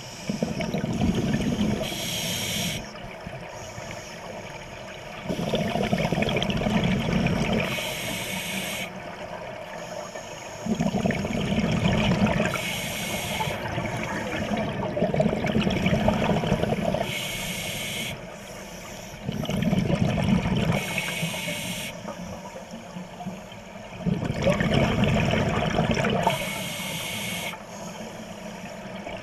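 Scuba diver breathing through a regulator, heard underwater: about six breaths, each a long bubbling rush of exhaled bubbles followed by a short hiss of inhalation, roughly every four to five seconds.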